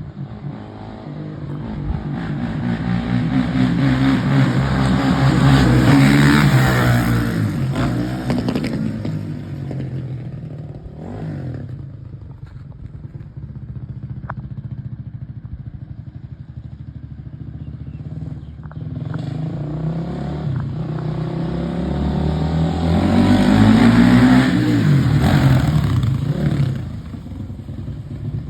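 Honda CRF450 dirt bike's single-cylinder four-stroke engine with an FMF exhaust, ridden by twice. Each time it grows louder with the pitch climbing, peaks, then falls away: once about six seconds in and again around twenty-four seconds. In between it runs more quietly.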